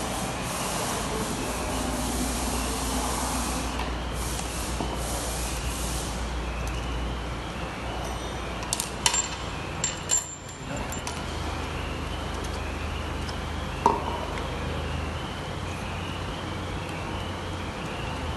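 Steady hissing machinery noise with a low hum, broken by a few sharp clicks around the middle and one more a few seconds later.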